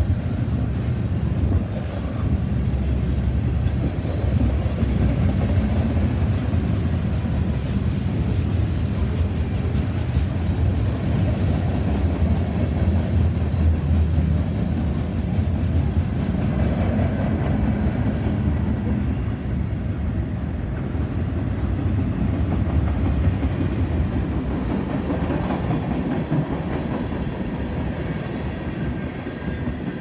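Freight train cars rolling past at close range: a steady, heavy rumble of steel wheels on the rails, with a few sharp clicks here and there.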